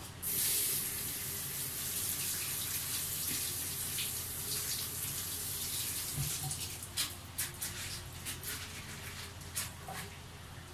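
Steady rushing hiss of water that starts suddenly, with a handful of sharp ticks over the last few seconds.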